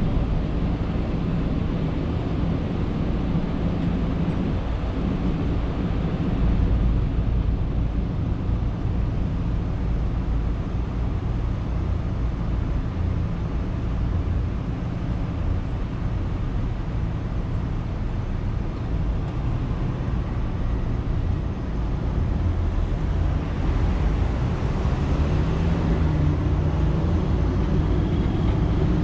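Car driving on a road: steady low engine and road rumble, the engine note rising near the end as it speeds up.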